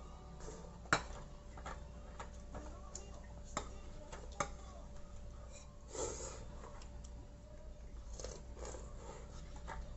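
Scattered light clicks and taps of spoons and chopsticks against bowls and plastic takeout containers, with soft eating noises. The sharpest clicks come about one, three and a half and four and a half seconds in. A faint steady hum runs underneath.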